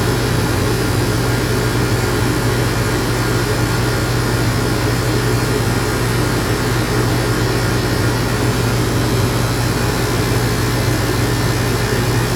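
Electric dog clippers running with a steady hum while trimming a dog's face.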